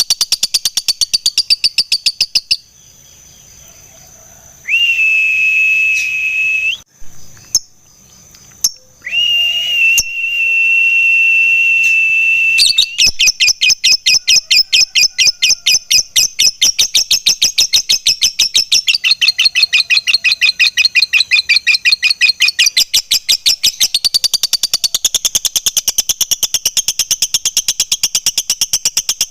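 Lovebird (Agapornis) chattering in its long fast 'ngekek' song, a rapid even run of sharp high notes. A short burst opens, then after a pause two long steady whistled notes are held, and about halfway through a long unbroken chattering run starts and keeps going.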